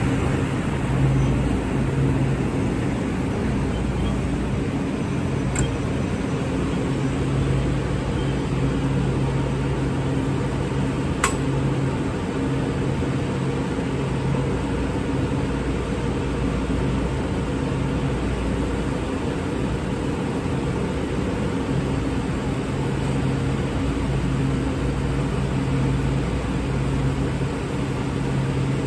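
Kawasaki M8 electric commuter train standing at the platform, its onboard equipment humming steadily, the low hum cutting in and out every few seconds. Two sharp clicks, about five seconds apart.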